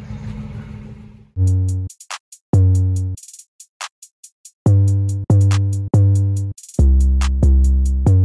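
Drum-machine hip-hop beat with deep booming bass notes and sharp high hi-hat ticks, kicking in about a second in over a steady low vehicle rumble that then drops out.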